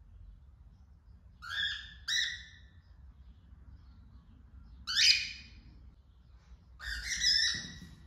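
Female cockatiel calling to birds outside: four whistled calls with a slight upward lilt. Two come in quick succession, a third follows a few seconds later, and a longer fourth comes near the end.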